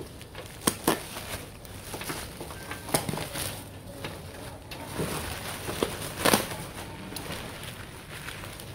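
Plastic bubble wrap rustling and crinkling as it is cut and pulled apart by hand, with scattered sharp crackles and clicks.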